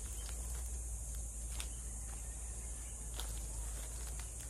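Steady high-pitched insect chorus (crickets or cicadas) over a low, steady rumble, with a few soft crunches of footsteps on dry leaf litter as a person turns in place.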